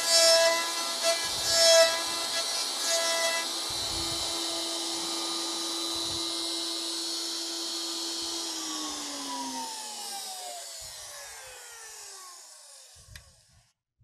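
DeWalt router running at full speed, its bit cutting the curved J-slot through the wall of a wooden yarn bowl, with loud surges in the first few seconds. About eight and a half seconds in it is switched off and winds down with a falling whine until it stops.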